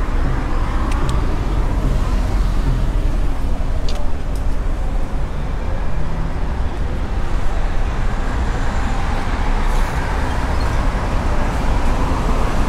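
Busy city street traffic: a steady wash of passing cars and buses with a heavy low rumble, and faint voices of passers-by mixed in.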